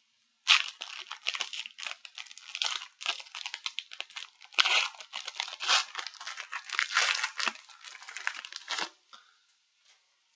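Foil booster pack wrapper being torn open and crinkled, a dense run of crackling and ripping that stops about a second before the end.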